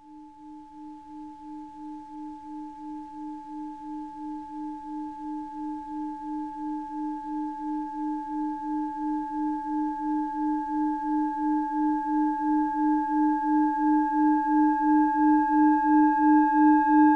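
Singing bowl played by rubbing its rim: a sustained low hum that wavers about three times a second and swells steadily louder. Higher overtones ring above it and more of them come in near the end.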